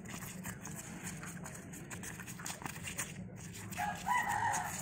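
A rooster crows once, a held call of about a second near the end. Quick shoe steps and scuffs on concrete run under it.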